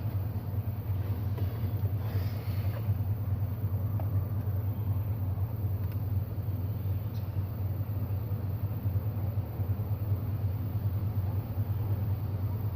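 A steady low rumble, like a motor running, holding even throughout.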